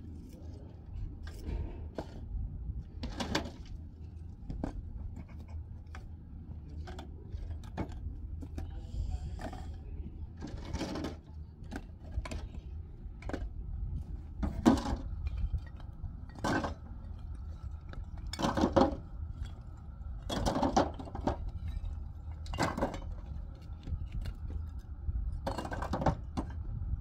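Bricks clinking and knocking against each other as they are picked out of a rubble pile by hand, irregular sharp knocks with the loudest ones in the second half. A steady low rumble runs underneath.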